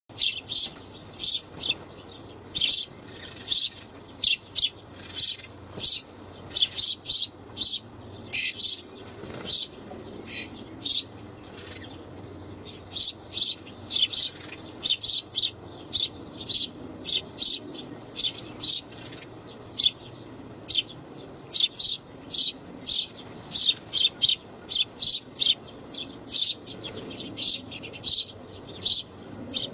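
Small birds chirping: a rapid string of short, high chirps, two or three a second.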